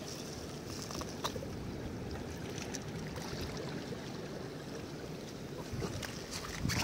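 Steady wash of sea water against shore rocks, with a couple of faint clicks.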